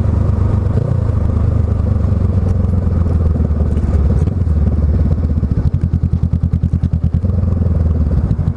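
Honda Rebel 500's parallel-twin engine running under way through an aftermarket Radiant Shorty GP slip-on exhaust. A little over halfway through, the exhaust note breaks into a distinct rapid pulsing.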